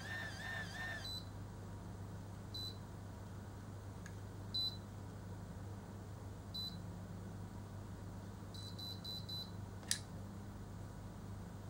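Automatic rotating hair curler: its motor whirs briefly with a wavering pitch as it draws the hair into its chamber, then it gives a short high beep about every two seconds while the curl heats, and a rapid run of four beeps signals the curl is ready. A sharp click follows as the curler is opened, over a steady low electrical hum.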